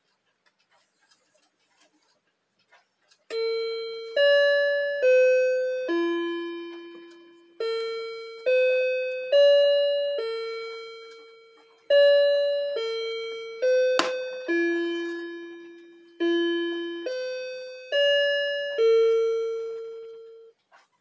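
Bulova mantel clock chiming, set off by moving its hands round by hand: about 3 s in it begins a melody of sixteen ringing notes in four groups of four, each note struck and dying away. A sharp click sounds about 14 s in.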